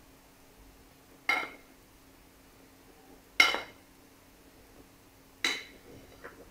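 A spoon knocked against a bowl's rim three times, about two seconds apart, each a sharp clink that rings briefly, as flour is shaken off it into the batter.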